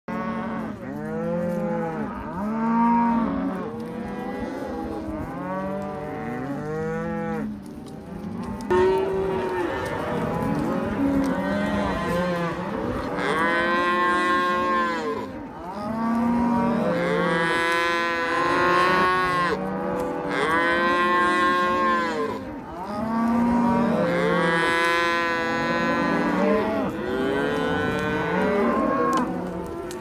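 A herd of cattle, cows and calves, mooing without a break, many calls overlapping one another.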